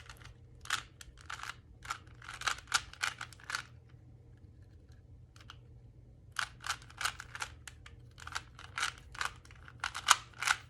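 Plastic layers of a 3x3 Rubik's Cube being turned quickly by hand, a rapid clatter of clicks in two runs with a pause of about two seconds in the middle, while the corners of the white side are put in place.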